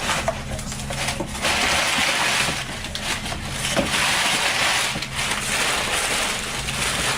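Packing material and cardboard rustling and crinkling in several stretches, with small clicks and knocks between, as a shipping package is opened by hand. A low steady hum runs underneath.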